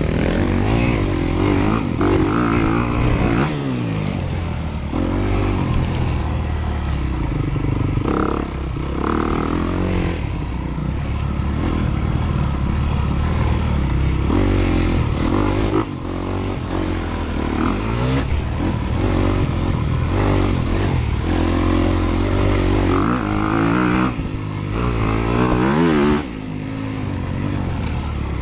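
Dirt bike engines being ridden hard, their pitch climbing and dropping over and over as they rev up and back off.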